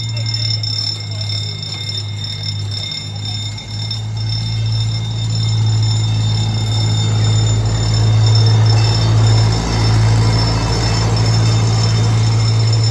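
CP Huntington miniature train locomotive running with a steady low engine hum, its rolling noise growing louder from about five seconds in as it comes closer.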